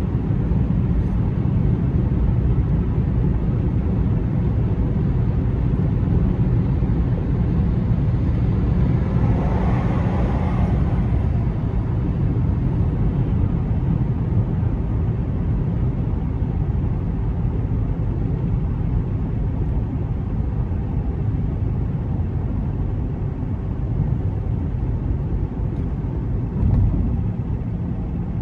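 Car driving on the road: a steady low rumble of road and engine noise. The noise swells with a brief hiss about ten seconds in, and there is a short bump near the end.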